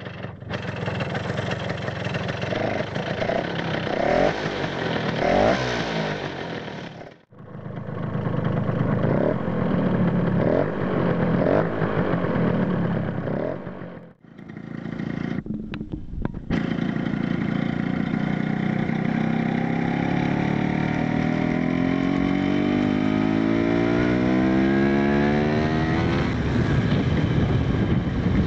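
Vespa PX 125 rotary-valve two-stroke single-cylinder engine revved in short blips, cutting out sharply twice. From about 16 seconds in, the engine pulls in one long steady rise in pitch up through the revs.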